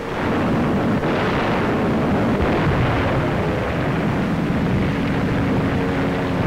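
Loud, continuous din of bomb blasts and fire, as dubbed onto archive war footage, starting abruptly and holding steady.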